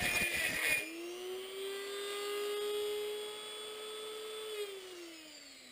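Dremel rotary tool grinding against a copper pipe bushing for about the first second, taking off the stamped ridge, then spinning free with a steady whine. Near the end the whine falls in pitch as the tool winds down.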